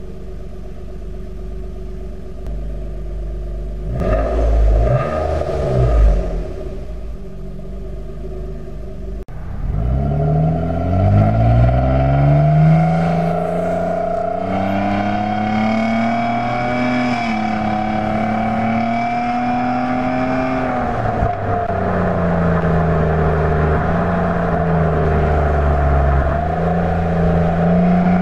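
Exhaust note of a 2017 Nissan Maxima's 3.5-litre V6 with the resonator deleted. It runs steadily, gives a couple of quick revs about four to six seconds in, then accelerates from about ten seconds: the pitch climbs and settles into a steady drone that rises and falls a little.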